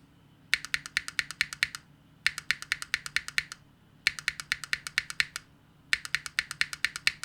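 Keystrokes on Gateron Khonsu linear switches in a Neo60 Core keyboard: four quick runs of about a second each, with short pauses between, at roughly eight to ten evenly spaced strokes a second.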